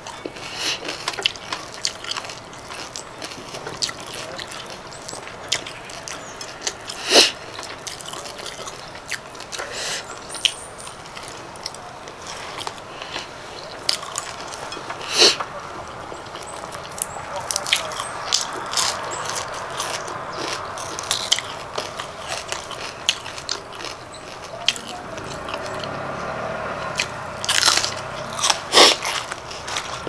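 Close-up chewing and crunching of fresh raw vegetables and herbs eaten with a raw beef salad, with sharp crunchy bites now and then: about seven seconds in, around fifteen seconds, and a few near the end.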